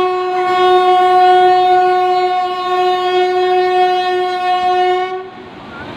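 Electric locomotive horn sounding one long, loud, steady note, cutting off about five seconds in. The rush of the flooded river returns faintly after it.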